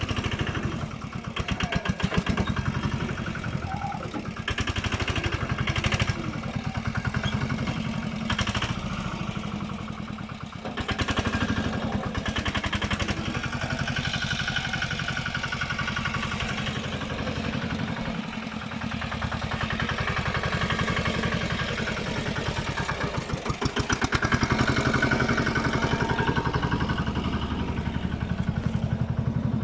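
A patpat, a two-wheel tractor with a single-cylinder diesel engine built into a small canopied hauler, chugging as it drives over a rough dirt track. The engine's speed and load rise and fall, with a few knocks and rattles from the body.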